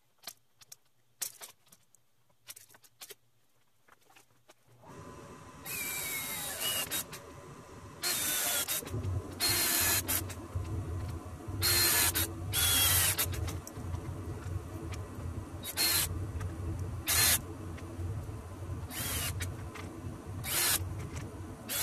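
A few light knocks and clicks, then a power tool used in about ten short bursts of half a second to a second, each with a squealing, gliding whine, over a steady hum.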